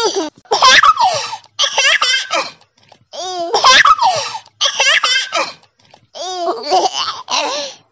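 A baby laughing hard in repeated bouts of high-pitched, rapid belly laughs, with short breaths in between; the laughter stops near the end.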